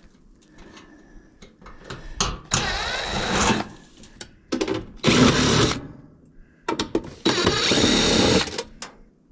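Cordless drill-driver backing screws out of a dryer's sheet-metal panels: three runs of about a second each, the motor whine rising as each starts, with light clicks and metal knocks between them.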